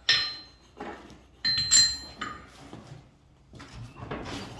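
Iron blacksmithing tools striking and clinking on an anvil at the nail-heading stage, with a bright metallic ring: about five sharp strikes in the first two seconds or so, then fainter knocks.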